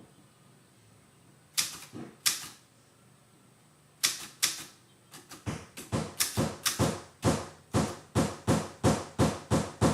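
Hammer blows on a nail: a few single setting taps, then a steady run of about three blows a second. The nail bends under the blows.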